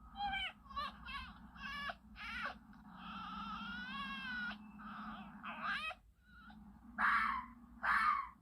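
Red fox calls: a quick run of short, high yelps and whines, one longer whining call lasting about a second and a half, then two harsh screams near the end.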